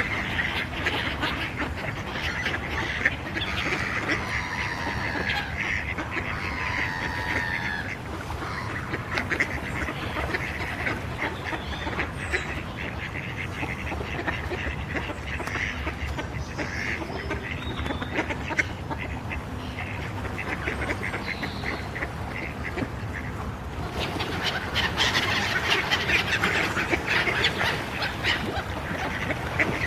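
Mallards quacking among the calls of black-headed gulls, a mixed flock of waterbirds crowding in to be fed. The calling grows busier for a few seconds near the end.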